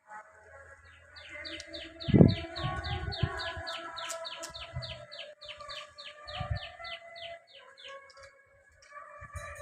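A bird calling a fast run of short falling chirps, about five a second, for several seconds. Dull low thumps come in between, the loudest about two seconds in.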